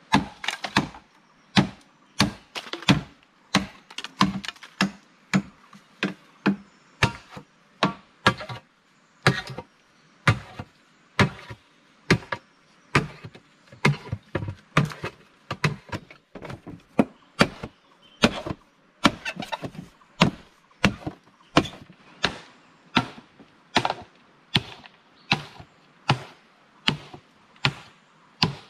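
Repeated chopping blows, a tool striking over and over at a steady pace of about two blows a second.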